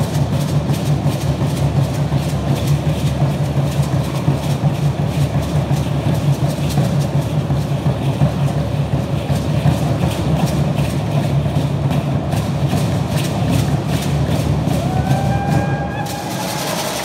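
A large upright Aztec drum beating a steady, fast rhythm under the dense shaking of the dancers' seed-pod ankle rattles as they stamp. The rattling and drumming stop about a second before the end, just after a short rising call.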